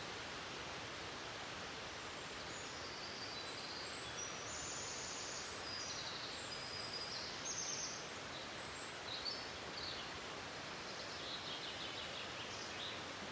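Steady rush of a waterfall, with small songbirds chirping and trilling high over it from about two seconds in.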